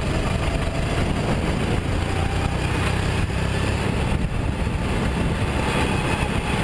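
Sodi RT8 go-kart engine running steadily at speed, heard from an onboard camera mounted on the kart.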